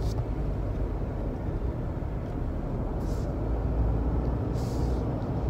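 Cabin noise of a Daihatsu Move Custom kei car being driven: a steady low drone of its small 660 cc three-cylinder engine and road noise. Two short hisses come through about three and five seconds in.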